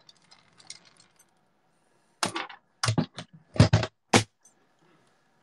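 Hard objects knocking and clicking on a desk as crafting supplies are rummaged through: a faint tick early on, then a quick run of about six sharp clicks and knocks starting about two seconds in.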